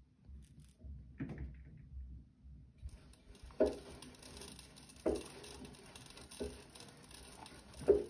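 Bosch front-loading washing machine at the start of a quick wash: the drum turns over a low rumble, and the wet laundry drops in soft thuds about every second and a half. From about three seconds in, a steady hiss of water running into the drum joins it.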